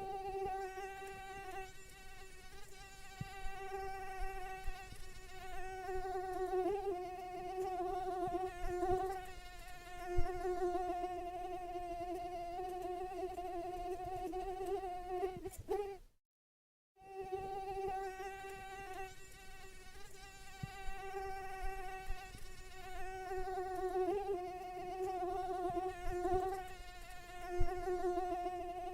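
Mosquito whining in flight: a steady, slightly wavering high buzz that breaks off completely for under a second about halfway through, then resumes.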